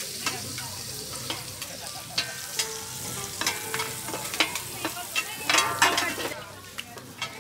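Shrimp sizzling in oil on a large flat street-food pan, while two metal spatulas scrape and clink against the pan surface. The clatter is busiest a little before six seconds in, and the sizzle dies down soon after.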